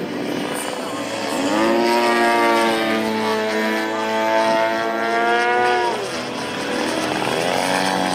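Radio-controlled aerobatic airplane's engine and propeller overhead. The pitch climbs about a second and a half in, holds high for about four seconds, drops off around six seconds, then climbs again near the end, as the throttle is worked through the manoeuvres.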